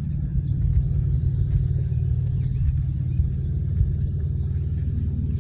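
A steady low rumble, like an engine running.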